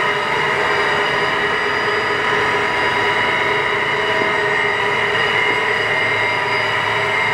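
Kingston HD 26x60 geared-head engine lathe running under its 15 hp main drive motor, with a steady whine from the headstock gearing.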